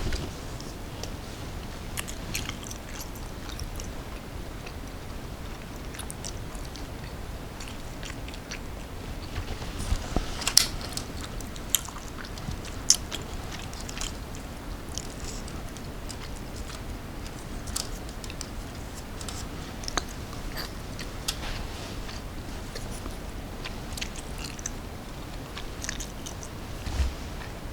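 Close-up chewing and biting of a soft shumai dumpling dressed in soy sauce: wet mouth sounds with scattered small clicks, a few louder ones about ten to thirteen seconds in and again near the end.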